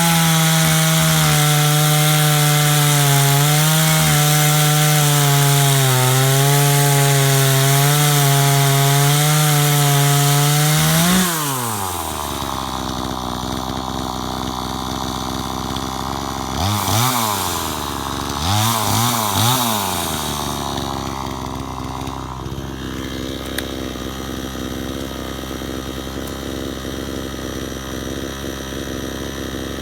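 62cc two-stroke gas chainsaw running at high revs with a slight waver in pitch, then the throttle is released about eleven seconds in and the engine drops to idle. It is blipped up twice briefly, then settles into a steady idle.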